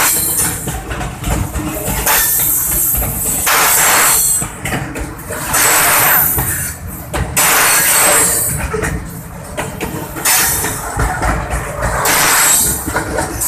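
Train running on rails: a steady low rumble with recurring swells of rushing noise about every two seconds.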